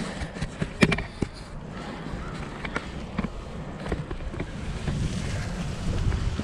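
Bicycle tyres rolling over a damp crushed-stone trail, with wind buffeting the microphone. There are a few sharp clicks about a second in, and the rolling noise grows louder toward the end.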